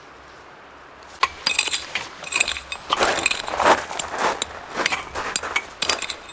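Hard objects clinking and rattling against each other as they are handled, a quick irregular run of sharp clinks with brief ringing that starts about a second in.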